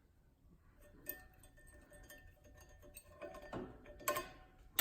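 A few light metal clicks and clinks, with short ringing after some, as a flywheel is snugged by hand onto a flywheel grinder's mount; the sharpest click comes near the end.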